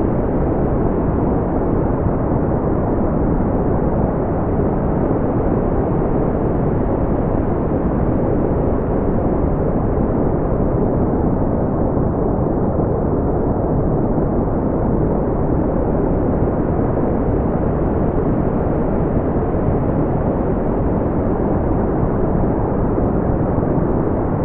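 Steady brown noise: an even, deep rumbling hiss weighted toward the low end, with no rhythm or change.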